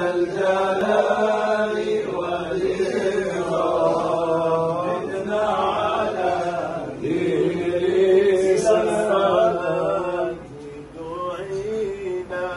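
Men's voices chanting an unaccompanied Islamic nasheed, a slow, sustained devotional melody; the chant drops away about ten seconds in and resumes more quietly near the end.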